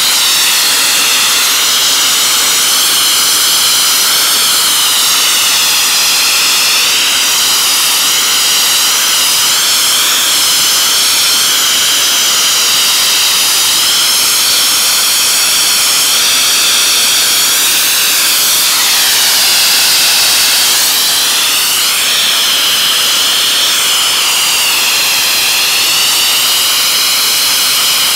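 Wet abrasive blasting: a hydro-blasting nozzle driving a mist of water, abrasive and compressed air onto painted steel slats, a loud steady hiss that wavers up and down in pitch. The jet is stripping the paint coating off the steel.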